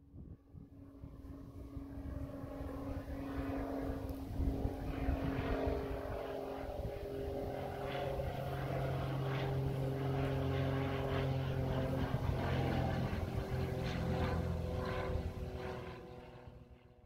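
Small propeller airplane flying over. Its engine drone swells over the first few seconds, holds steady, then fades away near the end.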